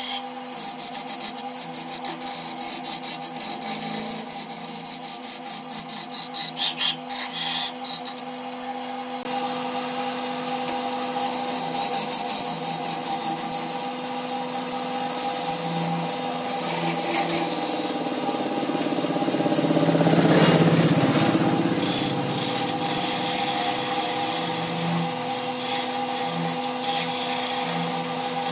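Wood lathe running with a steady motor hum while a turning gouge cuts the spinning wood, a continuous scraping cutting noise that swells to its loudest about twenty seconds in.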